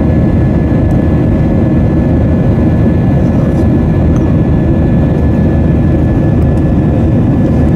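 Steady jet engine and airflow noise in the passenger cabin of an Airbus A320 in flight: an even, low-pitched roar with a thin, steady high tone over it.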